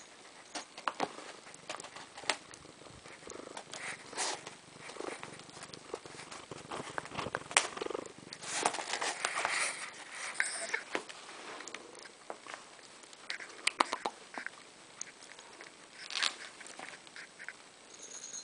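Small metal jingle bells on a ribbon jingling and clinking in irregular bursts as a cat bats and tugs at them.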